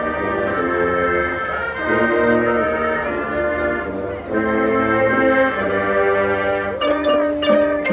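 High school marching band playing held brass chords that shift every second or so. Sharp percussion strikes join in near the end.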